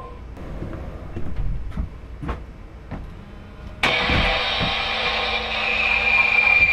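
A few footsteps or knocks, then, about four seconds in, a loud, steady electronic-sounding noise with a high held tone starts suddenly and keeps going.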